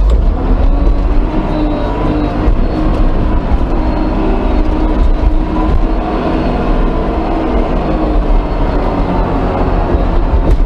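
Front loader's diesel engine running steadily, heard from inside the cab, its pitch wavering slightly as the machine drives over the mud.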